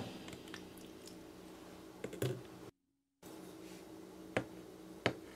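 A few faint, sharp clicks and taps from hands handling plastic ice-pop mould handles and a knife on a hard tabletop, with a brief drop to dead silence in the middle.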